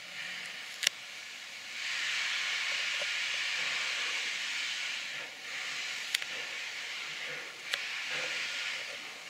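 Narrow-gauge steam locomotive hissing steam from its open cylinder drain cocks; the steady hiss grows louder about two seconds in and dips briefly midway. A few sharp clicks stand out above it.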